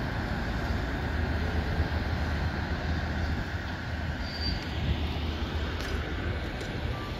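CN intermodal freight train rolling on along the line, a steady rumble of railcar wheels on the rails.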